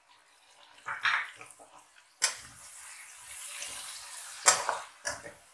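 Chopped green chillies and cabbage sizzling in hot oil in a metal pan as they are stirred with a metal slotted spatula. There are short scrapes of the spatula across the pan, a steady sizzle from about two seconds in, and a sharp knock of metal on the pan near the end.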